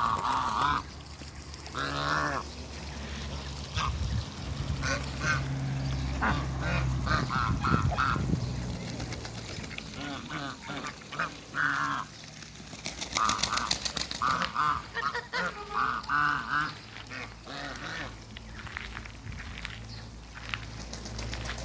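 Domestic ducks and geese calling: repeated bouts of quacks and honks in clusters of short notes, over a low steady hum.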